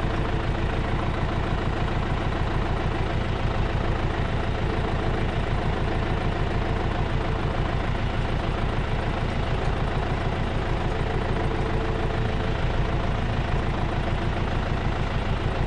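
Tractor's diesel engine running steadily at low speed while it pulls a vegetable transplanter, a low even rumble with a fast regular pulse.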